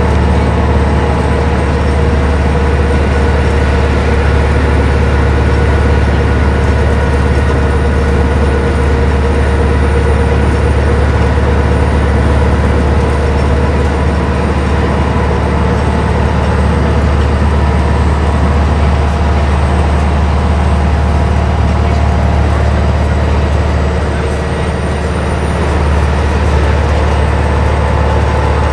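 Transit bus at freeway cruising speed, heard from inside the passenger cabin: the steady drone of its Detroit Diesel Series 50 EGR engine mixed with road and tyre noise. Near the end the sound eases briefly, then picks up again.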